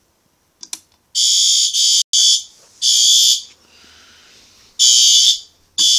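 Fire alarm horns on a System Sensor SpectrAlert Advance horn-strobe system sounding in short, loud, high-pitched blasts. They come in groups of three with a longer pause between groups, the temporal-three evacuation pattern.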